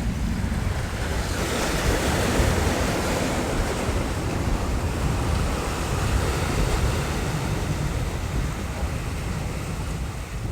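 Ocean waves washing onto the shore, one surge building about a second and a half in and easing off over several seconds, with wind rumbling on the microphone.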